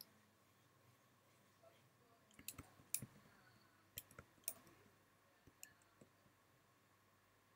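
A few faint, scattered clicks from a computer mouse and keys during digital drawing work, about seven in all from a couple of seconds in, the loudest near the middle, over a faint steady hum.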